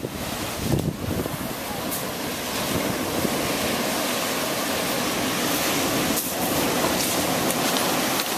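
Ocean surf breaking at the mouth of a lava sea cave, heard from inside the cave as a steady, unbroken rush.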